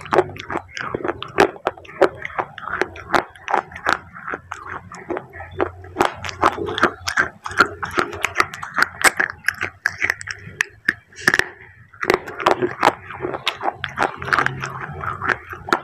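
Close-up crunching and chewing of pieces of eaten clay, a continuous run of sharp crackles and clicks with wet mouth sounds.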